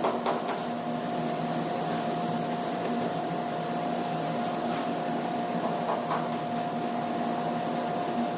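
A machine running steadily, with a constant whine over a low hum and a few light clicks.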